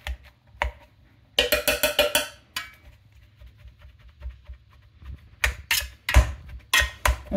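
Wire potato masher plunged through boiled potatoes, its metal head knocking against the bottom of a stainless steel pot: a quick run of about half a dozen clanks a little over a second in, faint ticks, then several heavier knocks near the end.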